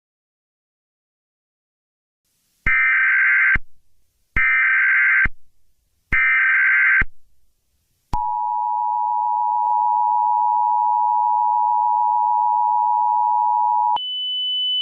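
Emergency Alert System tones: three SAME header data bursts, each about a second long and evenly spaced. Then comes the two-tone EAS attention signal, held steady for about six seconds. Near the end it gives way to a single higher steady tone.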